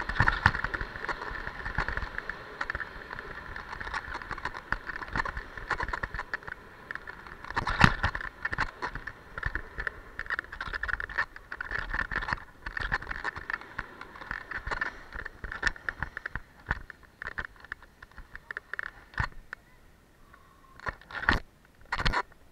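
Skis scraping and chattering over hard-packed groomed snow on a downhill run, with a steady hiss and many small knocks from the body-worn camera. Near the end the sliding dies down and two sharp knocks sound.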